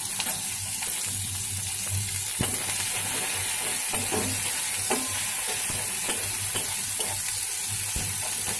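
Chopped onion sizzling in a kadai of hot oil and ghee with whole tempering spices: a steady frying hiss. A metal spatula stirs it, scraping and knocking against the pan now and then.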